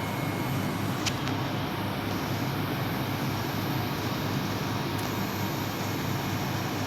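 Daikin 2.2-ton inverter split air conditioner running steadily, a constant noisy hum with no change in speed, and a faint tick about a second in.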